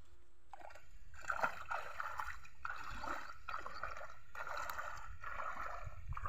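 Legs wading through shallow river water, a splash and slosh with each stride, about one a second, beginning about half a second in.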